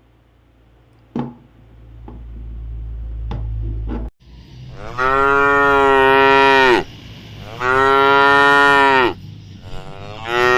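Cow mooing: two long, drawn-out moos, then a third beginning near the end. They follow a low rumble that builds for about four seconds and then cuts off.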